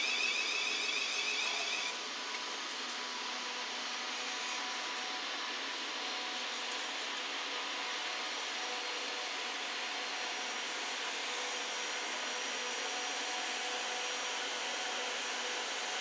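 Steady hum and hiss of a Thameslink Class 700 electric train standing at the platform, its ventilation and onboard equipment running. A high pulsing tone cuts off about two seconds in.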